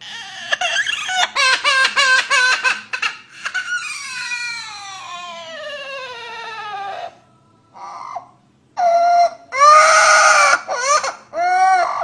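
Parrot mimicking a baby's cry: a run of quick sobbing wails, then one long wail sliding down in pitch, then several more loud wails near the end.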